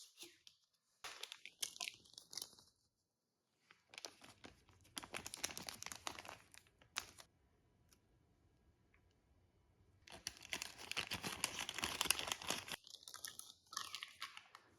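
Packaging being handled and unwrapped: crinkling, rustling and tearing in irregular bursts, with a longer stretch of dense crinkling in the second half.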